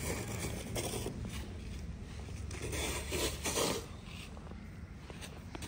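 Snow shovels scraping and pushing snow across paving in a string of uneven strokes, the loudest about three seconds in.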